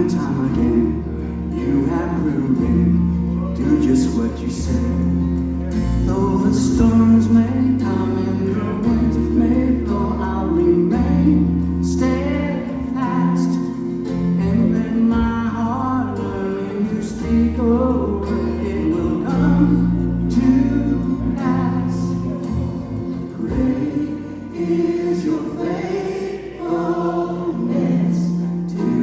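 Congregational gospel music: a choir singing over a steady bass line that shifts notes every second or two.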